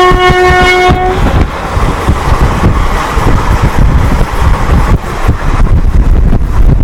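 Twin-tone horn of an Indian Railways WAP-4 electric locomotive blaring, cutting off about a second in. It gives way to the loud rushing rumble of the train passing at speed.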